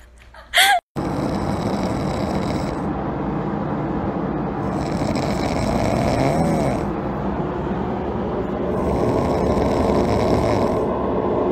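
A sleeping dog snoring, loud and steady, swelling and easing in slow breaths about four seconds apart. Just before it, about half a second in, comes a short high cry.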